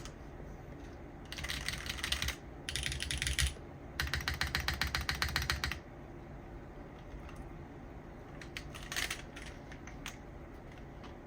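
Typing on a TGR Jane V2 custom mechanical keyboard with o-ringed Cherry MX Black linear switches: three quick runs of keystrokes, the last and fastest at about ten strokes a second, then a few scattered key presses near the end. Heard through a phone's microphone.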